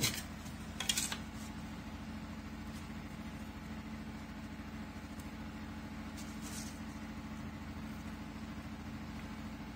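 Steady low machine hum, with a short scrape about a second in and another, fainter one a few seconds later.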